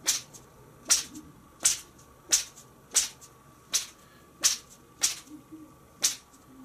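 A two-piece Black Hole Booster spinning rod is flicked sharply back and forth. It swishes through the air about nine times, roughly once every 0.7 s. No knock comes from the joint: the two sections sit tight.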